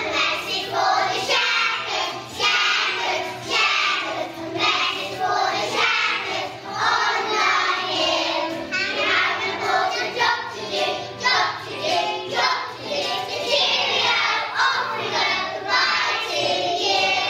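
A group of young children singing a Christmas song together over instrumental music.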